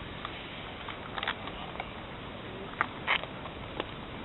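Steady background hiss with a few short, sharp clicks and knocks scattered through it.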